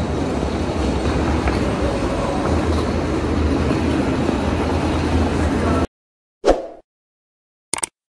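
Steady rumbling noise of a walk through a terminal hall, with a rolling suitcase's wheels running over a tiled floor. It cuts off suddenly about six seconds in, followed by a short swish and then a quick click from an end-card animation.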